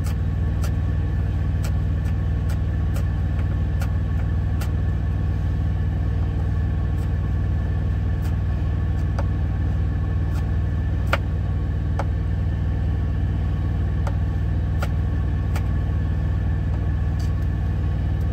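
Steady low hum of an idling truck engine heard from inside the cab, with irregular sharp clicks of a knife slicing green onions against a plastic cutting board.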